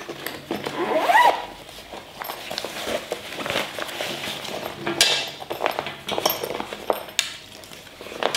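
A nylon tripod carry bag being unzipped, then rustling of the bag's fabric and a few light clinks and knocks as a folded Manfrotto befree travel tripod is handled and lifted out.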